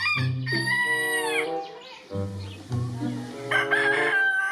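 Rooster crowing: one long call that falls away at its end, then a second long held call near the end, over background music with a steady bass beat.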